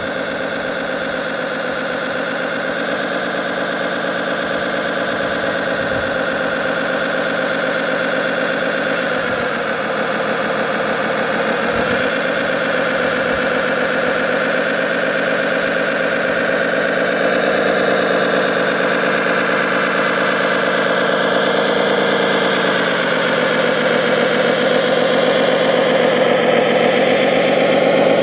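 Engine sound from a remote-controlled model articulated tractor as it drives, a steady pulsing diesel-like drone that dips in pitch twice and grows louder toward the end.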